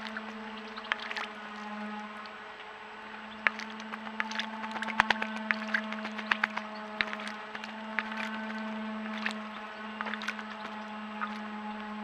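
Common blackbird bathing in a bird bath: many short splashes and flicks of water as it dips and shakes its wings, most frequent in the middle stretch. A steady low hum runs underneath.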